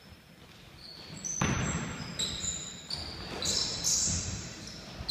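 A basketball being dribbled on a wooden gym floor: after a quiet start, a run of bounces about every half second begins about a second and a half in, with short high squeaks of sneakers on the floor among them.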